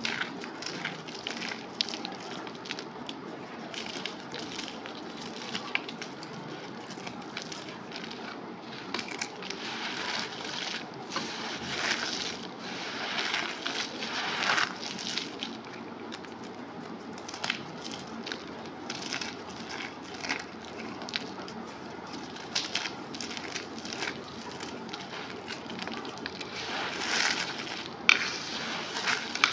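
Compacted cornstarch crunchies being crushed and crumbled by hand, giving soft, irregular crackles with a denser run of crunches in the middle and a sharp snap near the end.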